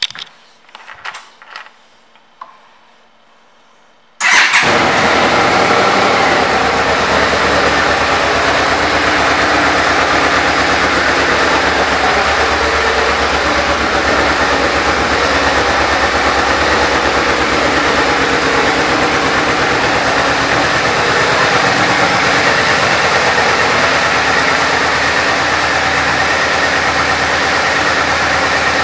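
2009 Yamaha Royal Star Venture's V-four engine starting up about four seconds in, after a few faint clicks, then idling steadily.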